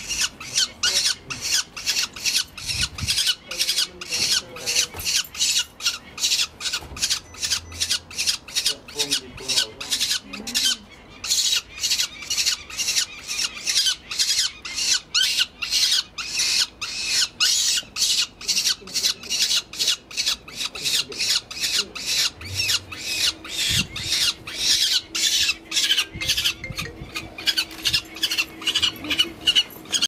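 Downy peregrine falcon chick, held in the hand for ringing, calling without a break in short harsh squawks, about two to three a second.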